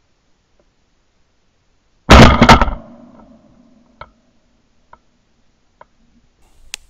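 A single shotgun shot fired at a squirrel up in a tree, about two seconds in, dying away over roughly a second. A few faint ticks follow, spaced about a second apart.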